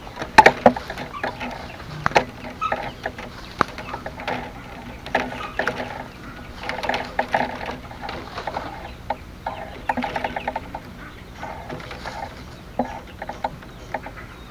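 Thin bamboo strips clicking, ticking and scraping against each other as they are threaded and pressed into a hexagonal basket weave by hand, with a few sharper snaps and short runs of rapid clicks.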